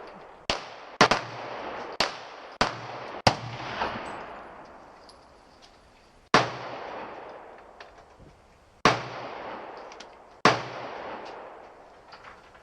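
About eight gunshots fired at uneven intervals, each a sharp crack trailing off in echo, with a few fainter shots near the end.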